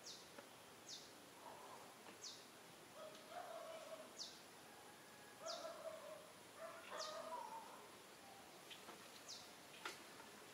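Faint bird call: a short, high note falling in pitch, repeated every one to two seconds, with softer lower calls in between.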